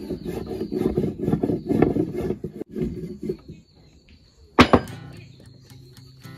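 A brass rod rubbed in quick strokes along a cinnamon stick, a rapid scraping that softens the bark so it can be peeled; the rubbing stops about three and a half seconds in. A single sharp click follows about a second later, and soft guitar music starts near the end.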